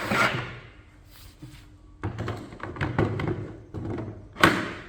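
Handling noise: a brief scraping rush, then several knocks and rubs, ending in one sharp, loud thunk about four and a half seconds in.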